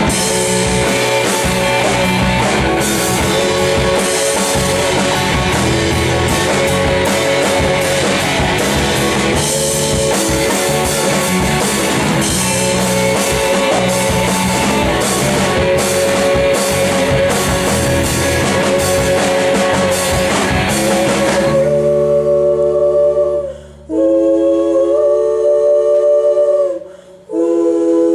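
Live rock band playing with drums, guitar and singing; about three-quarters of the way in, the instruments drop out and the voices carry on alone in a cappella harmony, holding long chords with two brief breaks.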